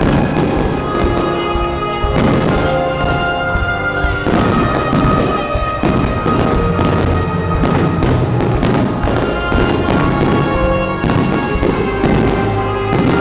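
Fireworks bursting in quick succession, a run of bangs and crackles over music with long held notes.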